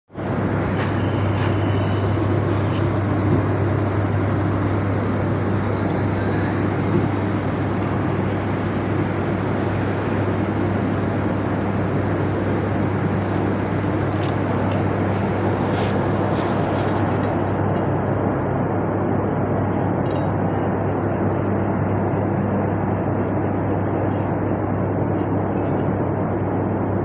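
Nine-inch angle grinder running steadily, a constant loud motor hum with no change in speed.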